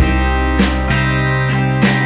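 Background music on acoustic guitar, with plucked notes and chords sounding over sustained bass notes.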